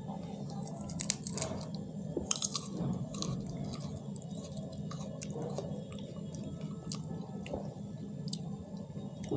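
A person chewing a raw whole garlic clove close to the microphone, with scattered small clicks of the mouth and teeth.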